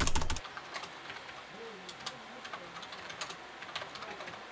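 Typing on a computer keyboard: a fast run of loud key clicks that stops sharply about half a second in, then quieter, scattered single keystrokes.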